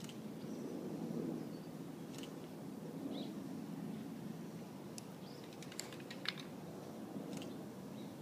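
Hushed outdoor ambience with a steady low rumble, and a handful of short, sharp clicks about five to six seconds in.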